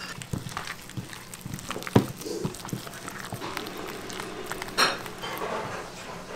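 A gloved hand squeezing and kneading a thick egg batter in a bowl: irregular wet squelching and sticky smacks, with a sharper smack about two seconds in and another near five seconds.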